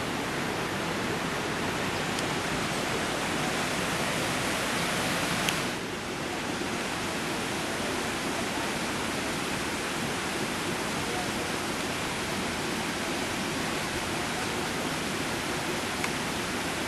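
Steady, even hiss of background noise, with a short click and a brief dip in level about five and a half seconds in.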